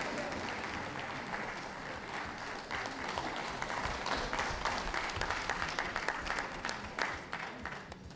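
Audience applauding, a steady patter of many hands clapping that thins out into scattered claps near the end.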